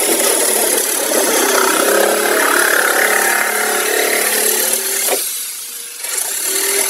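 Reciprocating saw (Sawzall) cutting through a boat hull, running steadily under load. It stops briefly about five seconds in, then starts cutting again near the end.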